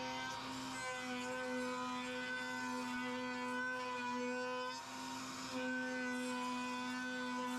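Router running in a router table, a steady high hum, as a bearing-guided flush-trim bit trims the edge of a plywood push block; the sound dips briefly about five seconds in.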